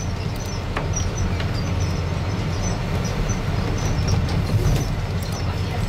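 Amusement-park monorail car running along its elevated track, heard from on board as a steady low rumble with faint clicks and rattles.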